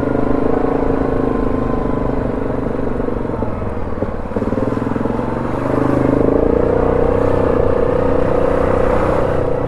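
ATV engine running under way on a trail, a steady drone whose pitch and loudness rise slightly about six seconds in as the throttle opens.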